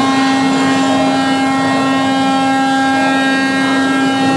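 Gas-fired flame effect on a prop tanker truck burning with a loud, steady roar and an even hum.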